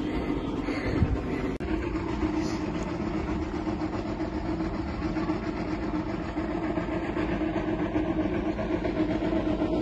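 Wind rumbling on the microphone as a steady low noise, with a single knock about a second in.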